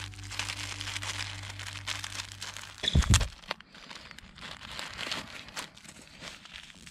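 Plastic wrapper of a pocket pack of paper tissues crinkling as it is opened and a tissue is pulled out. A loud low thump about three seconds in.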